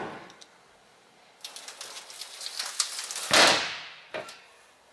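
Aluminium underbody toolbox door on a truck being closed: a few light clicks and rattles, then one loud metallic slam about three and a half seconds in that rings off briefly, and a short click just after.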